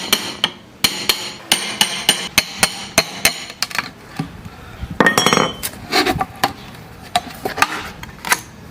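A tool knocking repeatedly on a bamboo tube in quick, irregular strikes while a small hole is cut in its side. A louder knock with a brief ring comes about five seconds in, then scattered lighter taps.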